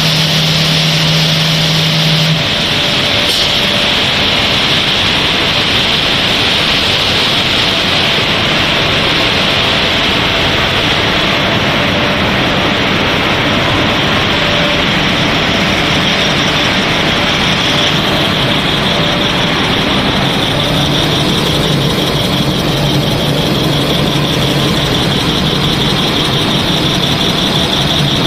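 Snack-pellet production line with a twin-screw extruder running: steady, loud machinery noise with a high hiss over it. A low hum cuts off about two seconds in.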